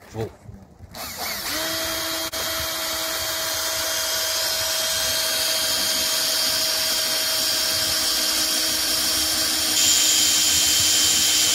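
Cordless drill spinning a Gekko (月光) twist drill bit through stainless steel 304 plate. From about a second in there is a steady motor whine with a high metal-cutting noise, which gets louder near the end as the bit cuts in and throws out long chips.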